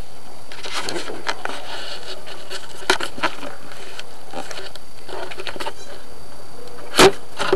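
Scattered rustling and small clicks, with one sharp knock near the end.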